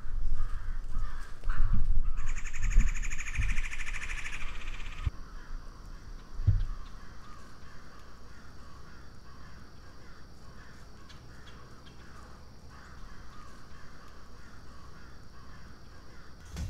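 Low thumps from a person shifting around in a tree stand, then a bird's harsh, buzzy call lasting about three seconds, starting about two seconds in. After that there is a faint steady high whine with soft, regular calls in the background.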